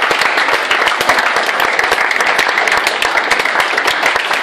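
Group of people applauding: dense, steady clapping.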